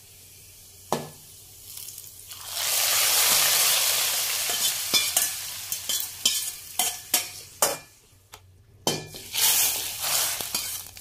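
Hot oil tempering of shallots, curry leaves and dried red chillies tipped from a small steel kadai into boiling chicken bone kulambu, sizzling hard for a few seconds. Then a run of sharp metal clinks from the kadai against the pot, and a second, shorter sizzle near the end.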